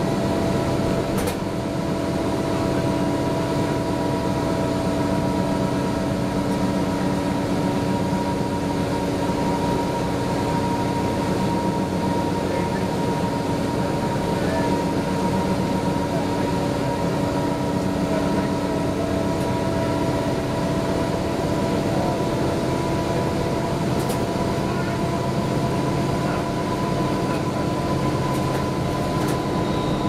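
Interior of a 1994 TMC RTS transit bus running at steady speed: its Detroit Diesel Series 50 engine and drivetrain make an even drone with a steady high whine over road noise. There are a couple of faint clicks or rattles.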